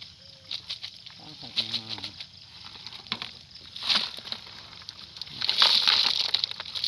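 Wet rustling and sloshing as a mesh trap net full of small eels and fish is shaken out into a plastic bucket, with a burst of splashing about four seconds in and a louder, longer one from about five and a half seconds. A brief pitched call sounds about one and a half seconds in.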